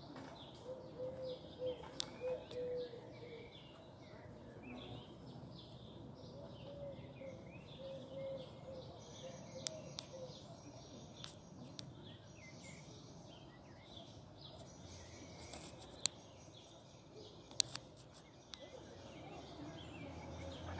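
Faint outdoor ambience with small birds chirping, a short run of low repeated notes in the first few seconds and again mid-way, and a couple of sharp clicks near the end.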